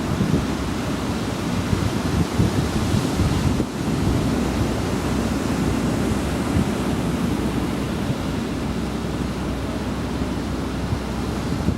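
Surf washing steadily onto a beach, with wind buffeting the microphone as a low rumble.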